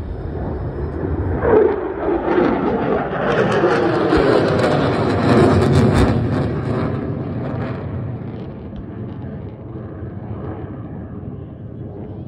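Pair of military jets passing overhead. Their engine noise swells to a loud peak over a few seconds, with a pitch that drops as they go by, then fades away.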